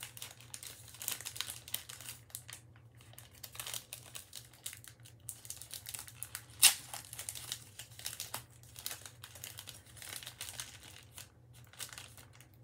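Snack wrapper crinkling and crackling irregularly as it is handled and torn open by hand, with one loud sharp crack a little past halfway.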